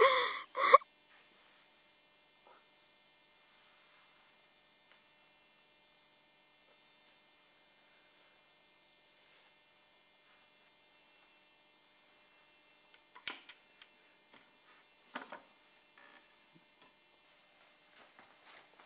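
A boy's short sob right at the start, then a faint steady hum for most of the stretch, broken by a few sharp clicks about thirteen seconds in and again two seconds later.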